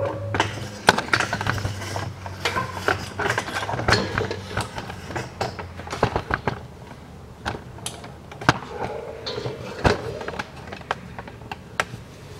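Irregular clicks, knocks and rustles of hands handling parts and a handheld camera, with several sharper knocks; a low steady hum underneath fades out about four seconds in.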